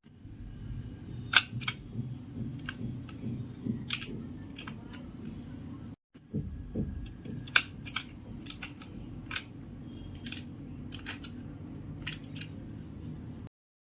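Hands working craft materials: irregular sharp clicks and taps over a low steady hum, with a brief cut about halfway through.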